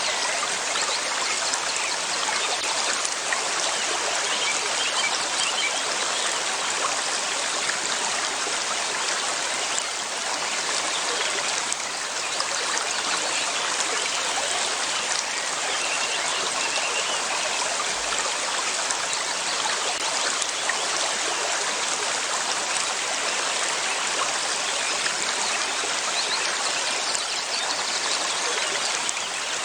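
River water flowing steadily, an even rushing and trickling that never lets up.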